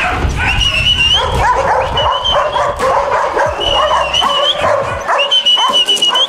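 Puppies whining and yipping excitedly: several long, high whines of about a second each, overlapped by shorter yelps.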